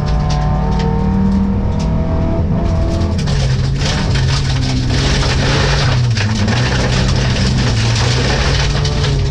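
Rally car engine heard from inside the cabin, running hard at high revs, with the revs dropping about three seconds in and then holding with small rises and dips. Short clicks and rattles from gravel striking the car sound throughout.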